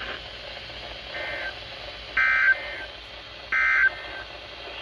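NOAA Weather Radio SAME digital data bursts, short warbling two-tone squawks about a third of a second long, repeated about a second and a half apart. There is a fainter one about a second in, then two louder ones, over a steady radio hiss. This is the end-of-message code that closes the weekly test transmission.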